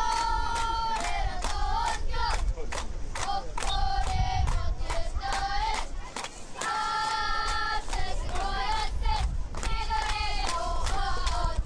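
Stadium crowd chanting in unison in high voices, each call held for about a second and repeated, over sharp rhythmic claps.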